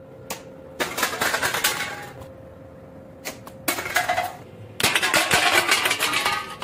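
Aluminium drink cans knocked over, clattering and rolling on a tile floor in three loud bouts, over the steady whine of a small electric motor.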